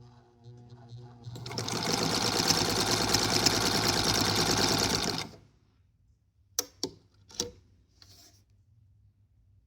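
Vintage BelAir Bantam Model 33 sewing machine: the motor hums as it gets going, then runs fast, stitching for about four seconds before stopping. A few sharp clicks follow.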